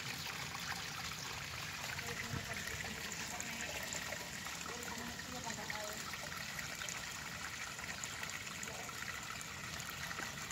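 Running water trickling steadily, a continuous even rush.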